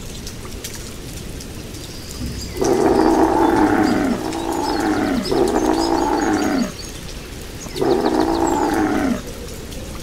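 Bear growling: a run of long, deep growls starting about two and a half seconds in, each lasting a second or more and dropping in pitch at its end, with a short gap before the last. Under them runs a steady rain-like hiss of water.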